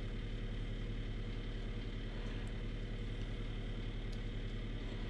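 Steady hum of a running motor, even in level and pitch throughout.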